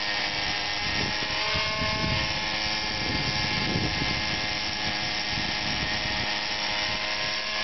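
Petrol-converted Align T-Rex 600 RC helicopter in flight, its Zenoah 20 two-stroke engine running with a steady, even buzz. A low, gusty rumble comes and goes through the middle.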